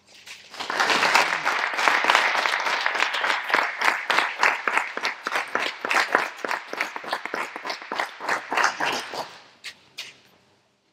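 Audience applauding, starting just after the start, holding strong for several seconds and dying away near the end.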